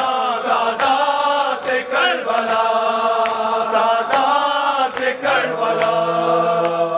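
Noha recited by male voices in a slow chant, kept in time by a sharp slap about every 0.8 s in the manner of matam chest-beating. Near the end the voices settle onto one long held note.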